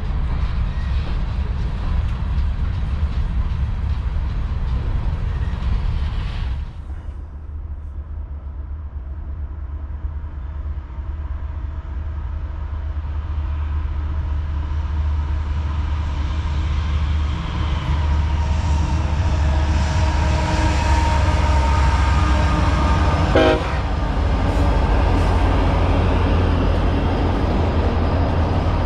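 Freight train passing with diesel locomotives: a heavy low rumble. It cuts off abruptly about six and a half seconds in, then builds again as another train draws closer, with steady tones from the middle onward.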